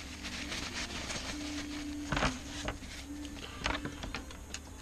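Crumpled paper towel rustling as excess epoxy is wiped off the repaired wing surface, followed by a few sharp clicks and taps of small tools being handled, about two seconds in and near the end.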